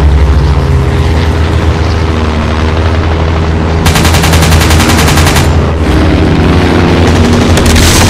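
A WWI biplane's propeller engine drones steadily, and a machine gun fires a rapid burst about four seconds in that lasts about a second and a half, with another short burst near the end.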